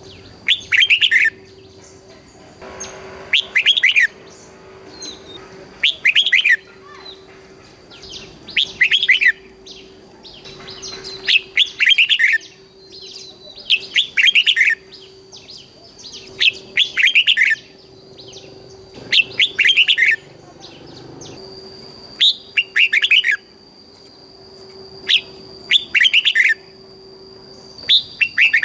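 Red-whiskered bulbul singing short, repeated song phrases, one about every two and a half seconds, over a faint steady hum.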